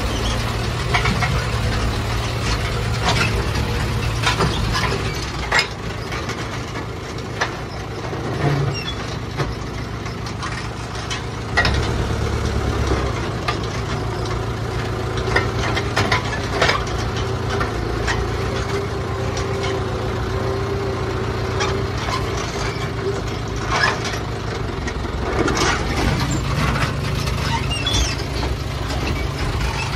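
Farm tractor engine running steadily, heard from inside the cab, with occasional knocks.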